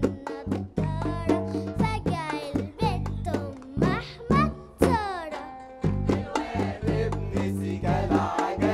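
Band music: a lively melody with sliding notes over a steady bass line and percussion, the accompaniment of a sung monologue before the words begin.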